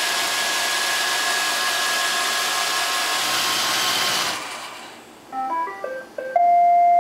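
Roomba robot vacuum running with its motors whirring steadily, then winding down about four seconds in. A short electronic tune follows: a quick run of beeps stepping up and down in pitch, ending on a long, louder held note.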